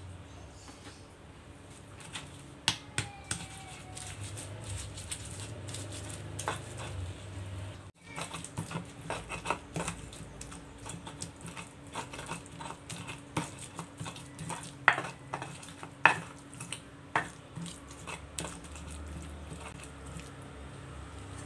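Stone pestle grinding sambal in a stone mortar (ulekan and cobek): wet scraping and crushing with irregular sharp knocks of stone on stone.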